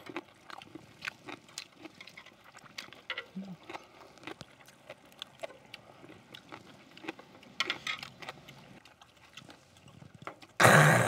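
Chopsticks and metal tongs clicking and scraping on a cauldron-lid grill, with eating sounds. Near the end comes a loud breathy exhale after a drink of liquor.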